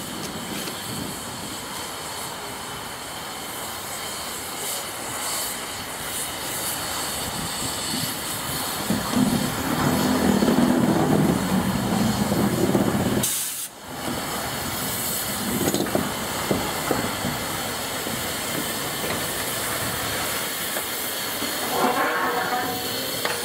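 LNER Peppercorn A1 Pacific steam locomotive 60163 Tornado moving slowly, steam hissing from its open cylinder drain cocks. The sound swells louder for a few seconds about nine seconds in and dips briefly just after.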